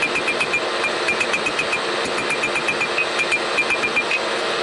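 Hand hammer striking red-hot steel on an anvil during forging, quick runs of about five or six ringing blows a second with short pauses between runs, stopping a little before the end. A steady hum runs underneath.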